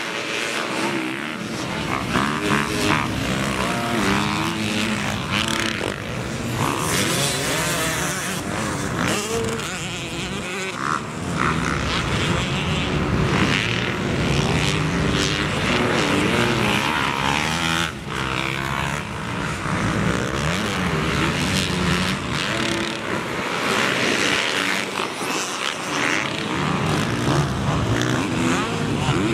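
Dirt bike engines revving up and down as riders accelerate, shift and back off around a motocross track, with several bikes running at once toward the end.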